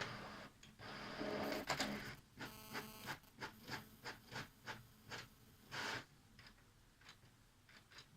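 Printer working: a motor whirs, gives a short whine, then runs through a series of rhythmic mechanical passes about two or three a second, ending in a louder burst, followed by fainter ticks.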